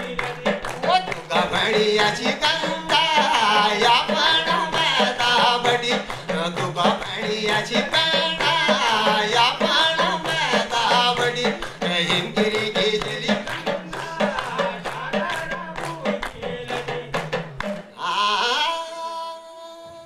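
Kumauni Nyoli folk song: a man singing with a hudka hourglass drum beaten by hand and hand clapping in rhythm. Near the end the drum and claps stop and the voice holds one long note.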